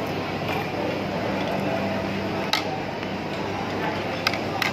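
Metal spoon and chopsticks clinking and scraping against a hot plate while fried beef pepper rice is stirred. There are a few sharp clinks, one about halfway through and two near the end, over a steady background hum.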